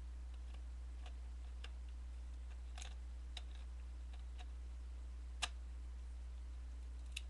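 Faint, scattered small clicks and taps from handling a Canon Rebel XS body and lens while the lens is fitted, with one sharper click about five and a half seconds in. A steady low hum runs underneath.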